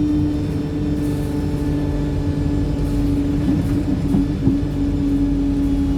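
Onboard a Wright StreetLite single-decker bus whose engine the uploader calls tired: steady engine and drivetrain noise, a constant whine over a low rumble, as the bus runs at an even pace. About four seconds in the whine wavers briefly, with a couple of small knocks.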